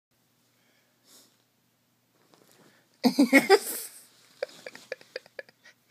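A Ragdoll cat and a Glen of Imaal terrier puppy play-fighting on a bed. About three seconds in there is a sudden loud scuffle of bodies and bedding, then a quick run of short, sharp sounds.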